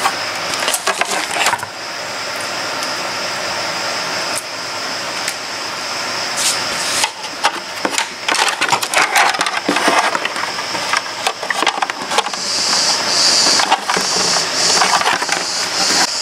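Packaging rustling and crackling as a sewing machine's foot pedal is handled and unwrapped. An even rustle runs for the first few seconds, and dense crackles and clicks take over about halfway through.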